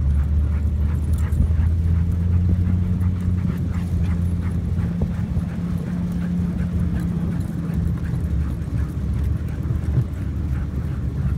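A team of sled huskies running in harness on a packed snow trail, with the patter of paws and sled runners on snow and the occasional dog whimper or yip. A steady low rumble runs under it, heaviest in the first half.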